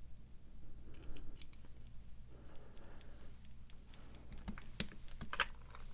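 Small metallic clicks and scrapes of lock-picking tools working in a Schlage padlock cylinder, with a few sharper clicks near the end.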